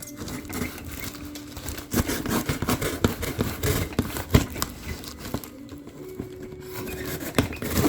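Cardboard shipping box being cut and pried open by hand: irregular scraping, tearing and crinkling with scattered sharp knocks, busiest from about two seconds in and again near the end.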